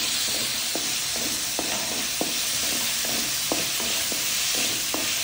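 Chopped capsicum, onion and tomato sizzling in oil in a metal kadai while being sautéed, with a wooden spatula scraping across the pan about twice a second over the steady sizzle.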